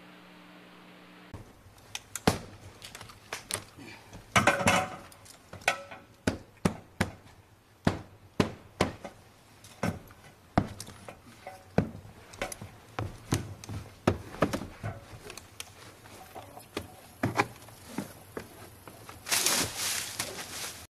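Irregular knocks and thuds, about one or two a second, like boots and gear moving on a roof, with a denser, louder clatter near the end.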